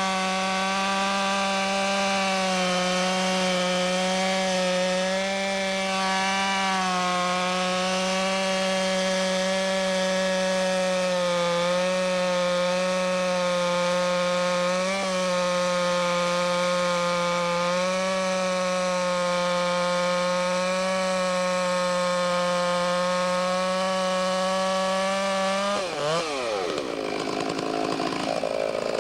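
Two-stroke chainsaw held at full throttle in a long, steady cut through wood. About 26 seconds in, the engine pitch drops sharply as the throttle is let off.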